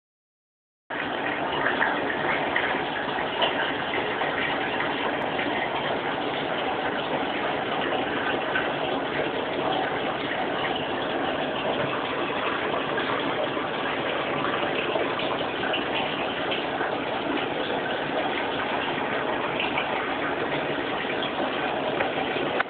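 Steady rush of running, splashing water, starting abruptly about a second in.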